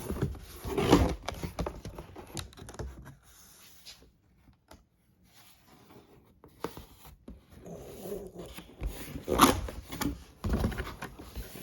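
Packaging of a boxed motorcycle helmet being handled and pulled apart: irregular rustling and scraping with sharp clicks, a quiet pause in the middle, then more handling with the loudest rustle near the end.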